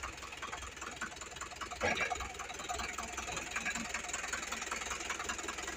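Tractor engine idling with a fast, even clatter, with a brief louder knock about two seconds in.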